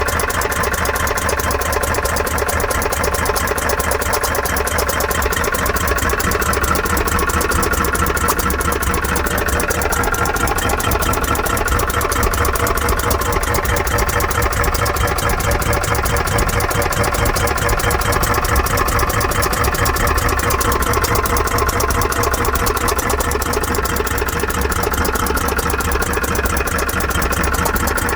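An engine idling steadily with a squeaking noise running through it, the unexplained odd noise being recorded.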